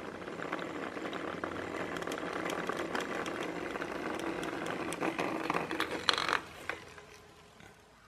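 Home-made solar vibrating bug, a small toothbrush vibrating motor on a garden solar-light circuit, buzzing and rattling where it rubs against the window sill. About six seconds in there is a knock, and the rattle then fades to a faint buzz.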